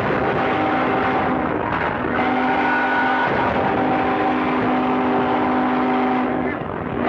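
Ship's whistles sounding long steady chords of several pitches together over a dense rushing hiss. The blasts break off briefly about two seconds in, then sound again and die away near the end.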